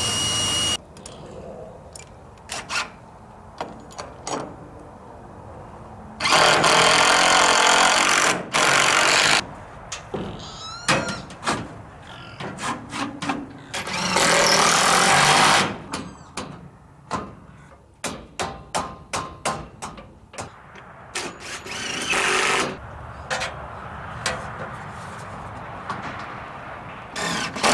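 Cordless drill driving screws into a wooden header to fasten box-rail mounting brackets. It runs in several bursts of one to three seconds, with short rising whines as the motor spins up and a run of sharp clicks in between.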